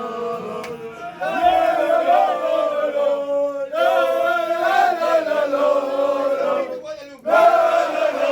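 A group of men chanting in unison, a victory chant, in three sung phrases with short breaks about three and a half and seven seconds in.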